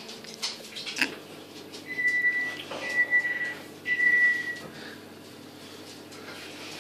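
Three long, steady electronic beeps at one high pitch, evenly repeated, like a kitchen appliance's beeper. They follow a single sharp knock.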